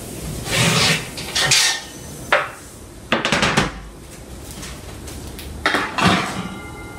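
Metal baking tray and wire rack clattering as they are taken out of a cupboard and set down on the cooktop, in several separate knocks and scrapes.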